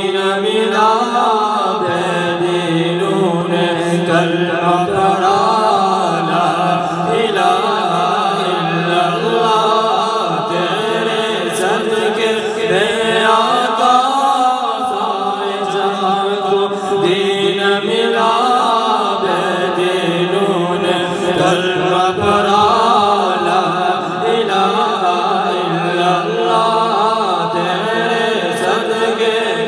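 Two men's voices singing a devotional naat together into microphones, amplified through a public-address system.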